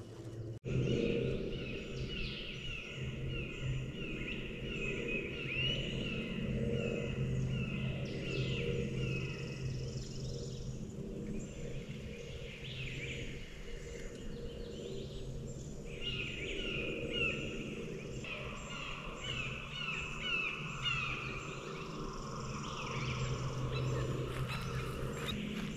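Dawn chorus of songbirds: many short chirping and whistled calls repeating over one another, over a steady low drone.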